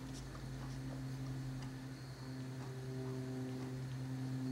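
A steady low hum with a few faint ticks; higher, quieter tones join the hum about two seconds in.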